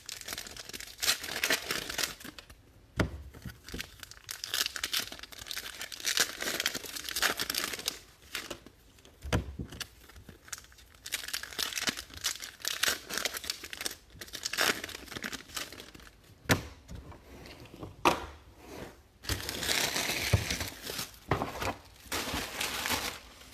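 Baseball card pack wrappers being torn open and crinkled, one after another, in irregular rustling bursts, with a few thumps as things are set down.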